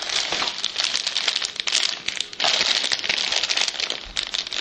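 Plastic packaging crinkling and rustling as the phone's accessories are handled, in a dense run of crackly rustles with a brief pause about two seconds in.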